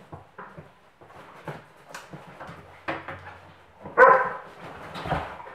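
Dogs playing on a wooden floor: scattered clicks and scuffles of claws, then a loud, high-pitched bark about four seconds in and a weaker second bark about a second later.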